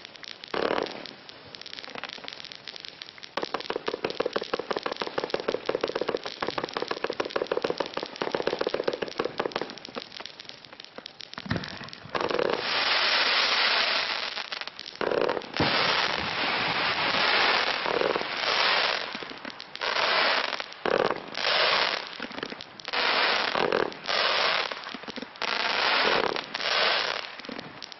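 20 mm compound fireworks battery firing, its effects low on bangs. First a dense, fast rattle of small shots and crackles, then from about the middle a series of louder hissing volleys, roughly one a second.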